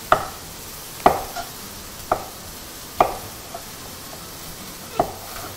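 Kitchen knife cutting mushrooms on a wooden cutting board, trimming off their stem ends: five sharp knocks about a second apart, with a longer pause before the last.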